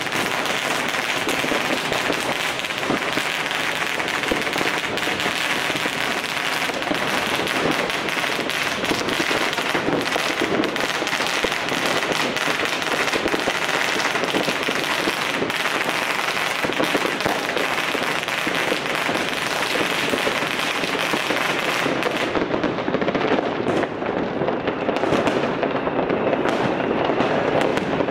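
Dense, unbroken barrage of firecrackers and fireworks: many overlapping bangs and crackles with no let-up, turning duller near the end.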